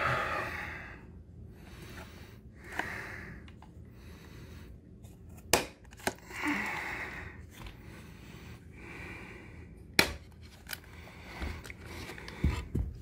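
One-handed quick-release bar clamps being released and taken off a glued armrest: a few sharp clicks, the loudest about five and a half and ten seconds in, with low handling knocks near the end. Heavy breathing close to the microphone runs between them.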